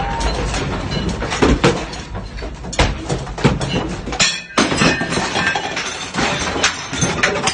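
Dense clattering and crashing of breaking glass and falling objects, many sharp impacts in quick succession, with a brief lull about four seconds in.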